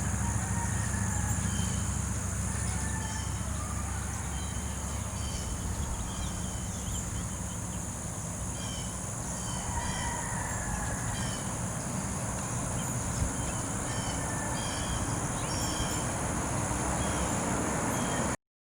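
Outdoor ambience: a steady high insect drone with short bird chirps repeating every second or so, over a low rumble. The sound cuts off abruptly just before the end.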